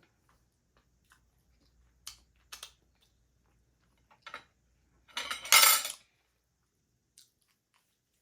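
Close-up eating sounds from someone eating smoked ham hock and turkey leg: a few scattered soft mouth smacks and clicks, then a louder rushing noise about a second long just after five seconds in.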